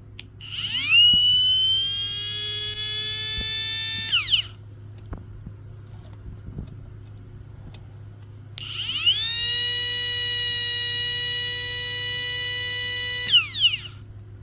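Ridgid 18-volt cordless grinder motor run twice. Each time it spins up with a rising whine, holds a steady high whine for about three to four seconds, then winds down. It now runs smoothly because its sensor circuit board faces the motor; turned the other way, the motor would only bump.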